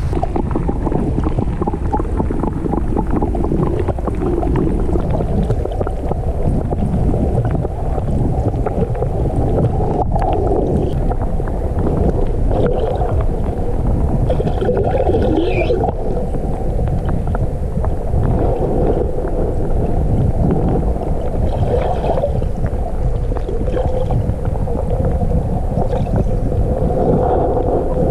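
Steady, muffled rushing and gurgling of river water, picked up by a camera held at and under the surface of a clear stream.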